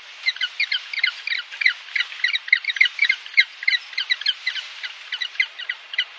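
Emperor penguin chicks chirping: a fast, uneven run of short high-pitched peeps, several a second.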